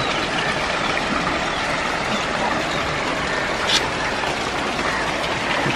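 Steady rushing of a river swollen into flood after heavy rain, with a brief tick a little past the middle.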